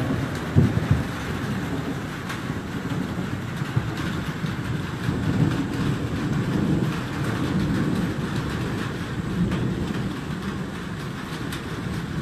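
Thunder from a severe thunderstorm rolling and rumbling, swelling and fading in long low waves, over a steady hiss.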